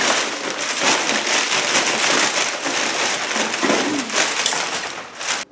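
Packaging rustling and crinkling close to the microphone as a box is unpacked by hand. It runs continuously and cuts off abruptly near the end.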